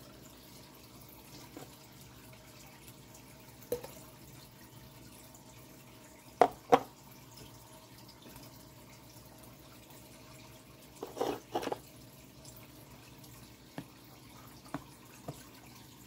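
Aquarium filter water trickling and bubbling steadily, with a few sharp knocks and clicks: a loud double knock about six and a half seconds in and a quick cluster around eleven seconds.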